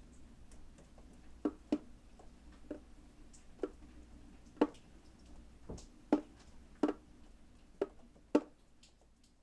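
Rainwater dripping, single drops plinking at uneven intervals, about a dozen over several seconds, some louder than others, over a faint low steady background.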